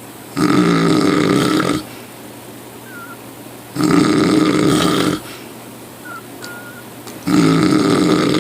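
Loud snoring: three long snores, each about a second and a half, coming about every three and a half seconds, with a low, even background between them.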